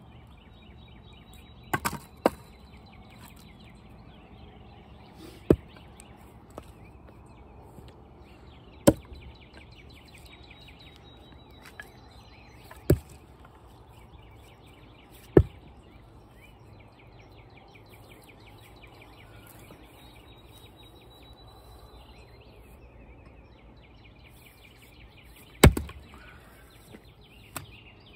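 Axe blows splitting knotty, crotchy red maple firewood rounds: about eight sharp strikes at uneven intervals, with a long gap before the loudest one near the end. A continuous high chirping trill runs in the background.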